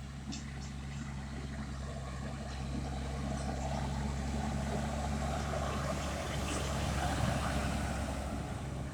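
Engine of harvest machinery running steadily, a low even hum that swells a little louder through the middle and eases off near the end.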